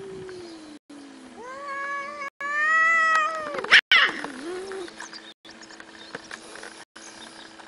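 Two cats squaring off: a low drawn-out yowl, then a long caterwaul that rises and falls, cut off by a sharp hiss as one swipes at the other about four seconds in, followed by a short low growl.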